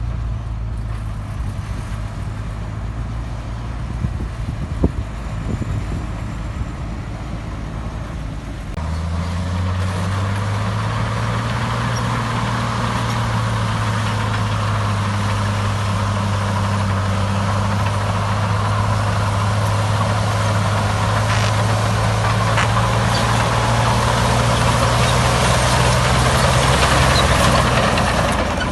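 Heavy diesel engine of earthmoving machinery running steadily. About nine seconds in, its note steps up and it gets louder, and it stays that way until near the end.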